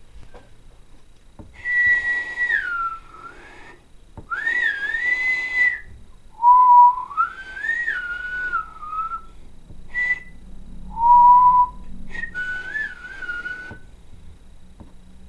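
A person whistling by mouth, about six short phrases with short gaps between them. The pitch slides up and down within each phrase.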